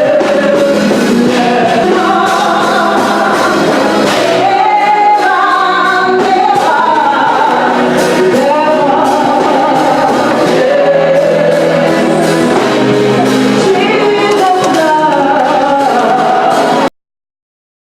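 Gospel choir music, male and female voices singing together over accompaniment, which cuts off abruptly about a second before the end.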